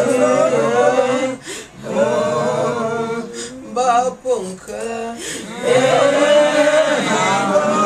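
A group of voices singing unaccompanied, men's voices prominent, in long held phrases with short breaks between them.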